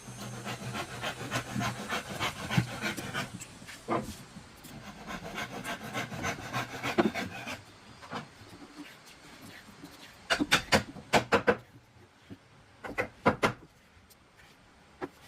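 Wood being rubbed or filed by hand in quick rhythmic rasping strokes, then a few sharp clicks and knocks near the end.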